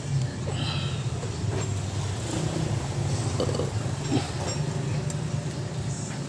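A steady low mechanical drone with light scattered clicks and metal taps as the engine is worked by hand.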